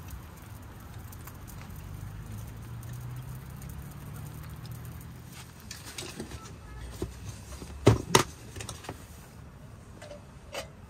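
A hard plastic storage case being handled: scattered clicks and scrapes, then two sharp knocks about eight seconds in. A low steady hum underlies the first half.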